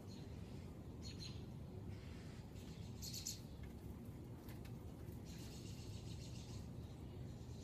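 Three short bouts of high-pitched chirping, the last and longest about five seconds in, over a low steady hum.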